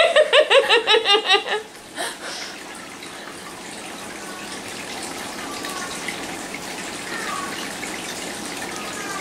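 People laughing in a quick run of short pulses for a second or two, then a steady hiss of background noise.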